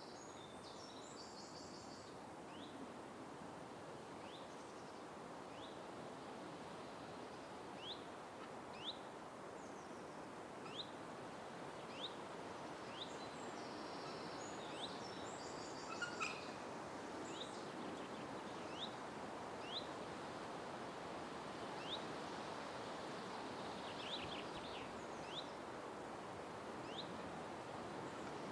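Forest ambience: a steady hiss of background noise, with a bird giving short rising chirps every second or so, one of them louder about halfway through.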